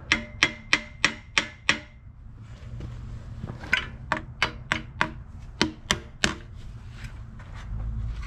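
Hammer blows on the steel axle tube of a Ford 8.8 rear axle housing. Six quick strikes with a metallic ring, a pause of about two seconds, then about eight more strikes.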